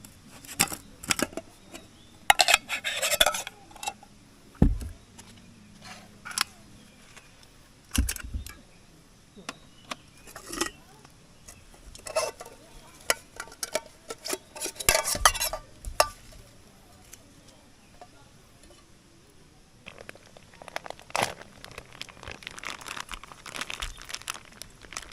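Camp cookware being handled: a run of sharp clinks and knocks of pots, lids and utensils, with a few longer stretches of rattling and scraping.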